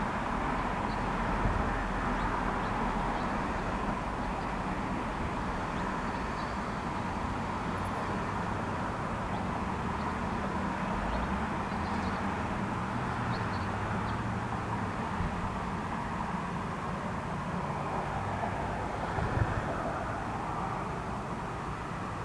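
Steady road traffic going by on a busy road, heard from inside a parked car, with a low engine hum underneath and a brief bump about nineteen seconds in.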